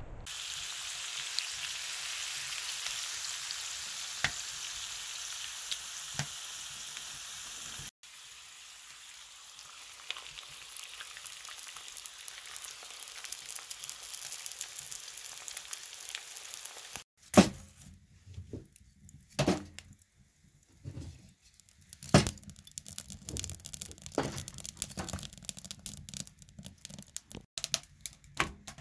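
Potato wedges and bacon sizzling in a cast-iron skillet, a steady hiss. About two-thirds of the way through the sizzle drops away to a few sharp knocks and clatters of the skillet being handled, one of them the loudest sound.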